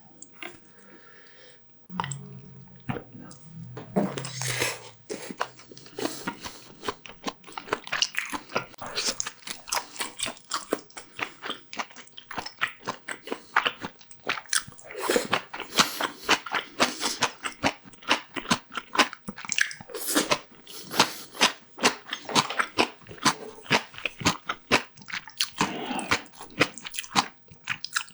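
Close-miked eating: a person chewing and biting food with crunches and rapid wet mouth clicks, starting about two seconds in and continuing densely.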